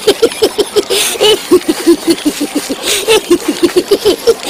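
Animated ZooZoo characters chattering in rapid, high-pitched gibberish, with short choppy syllables several times a second and no real words.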